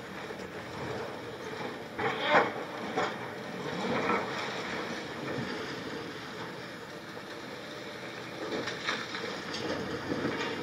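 High-reach demolition excavator's hydraulic crusher breaking up a concrete tower: a steady machine rumble with several sharp knocks and cracks of concrete, the loudest about two seconds in and more near the end.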